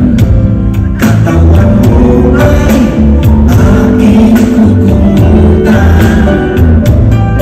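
Live band music with drum kit, bass and guitar, and male singers singing into microphones.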